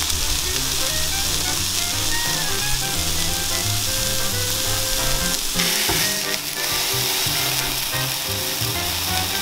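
Block of beef round sizzling steadily as it sears in olive oil in a hot frying pan over high heat, with light background music playing underneath.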